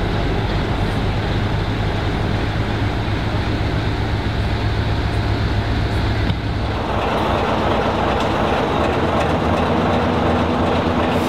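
Heritage diesel locomotive running, with a steady low engine drone. About six seconds in the sound changes abruptly to a broad rushing rumble of a train on the move.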